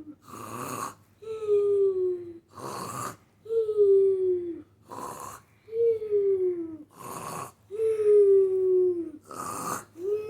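Pikachu snoring in a cartoon voice: a rasping in-breath followed by a drawn-out, slowly falling squeaky tone on the out-breath. The cycle repeats evenly about every two seconds, four to five times.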